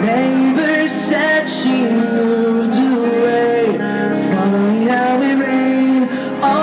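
Live rock band playing a ballad: a voice sings the melody in long, sliding notes over guitar, with several cymbal crashes.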